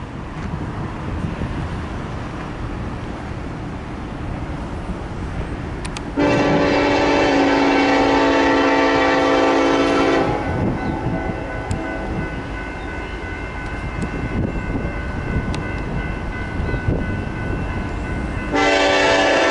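Air horn of an approaching Norfolk Southern freight locomotive sounding a long steady blast starting about six seconds in, carrying on more faintly for several seconds, then sounding loud again near the end, over the low rumble of the oncoming train.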